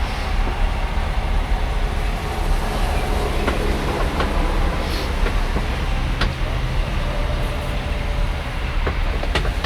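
A large engine running steadily with a low, even rumble, with a few sharp clicks and knocks over it.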